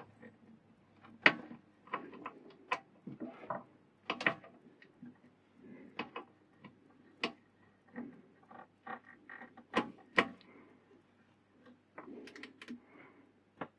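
Irregular metallic clicks and knocks of a spanner working the mini lathe's mounting bolts, with handling noise in between. The sharpest knocks come about a second in and again around ten seconds in.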